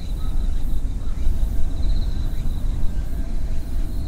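Wind rumbling on the microphone, with a faint high-pitched trill that comes and goes twice.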